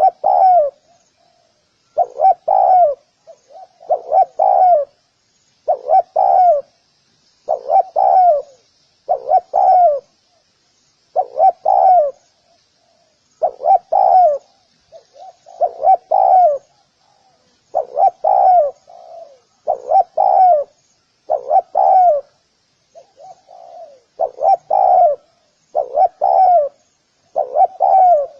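Spotted dove cooing over and over, each phrase a quick group of two or three low notes, repeated about every two seconds. A faint high chirping runs underneath.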